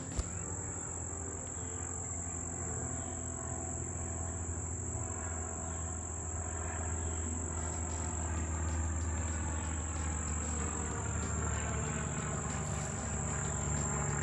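A steady, high-pitched insect call, one unbroken tone that holds throughout, over a low rumble.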